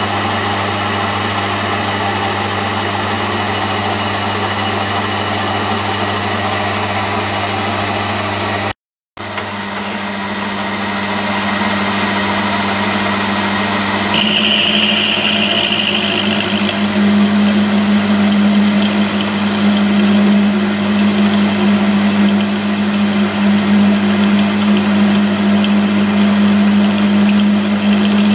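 Electric spindle motor of a Myford lathe milling attachment running steadily at speed, driving a 6 mm four-flute end mill, with a steady low hum that gets louder about halfway through.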